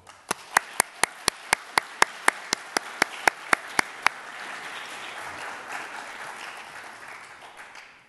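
Audience applause, with one person clapping right at the lectern microphone. His claps are sharp and loud, about four a second, for the first four seconds. The crowd's applause swells and then dies away near the end.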